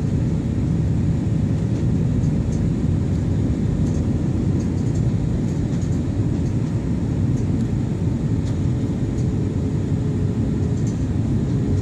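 Airliner cabin noise during descent: the steady low rumble of the engines and airflow, with a faint steady hum on top.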